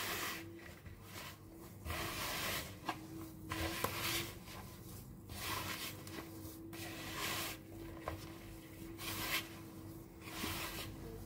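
Hands kneading crumbly cookie dough in a mixing bowl: a rustling squeeze and scrape about once a second, as the lumps of brown sugar are broken up by hand.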